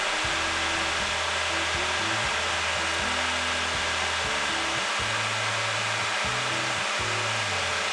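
Electric radiator cooling fan motor running steadily with a seven-blade fan fitted, blowing a constant rush of air.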